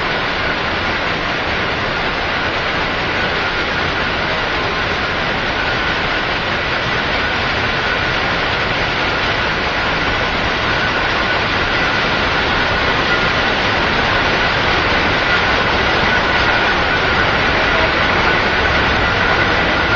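28-type sisal processing machine running: a loud, even mechanical din with two steady high tones running through it.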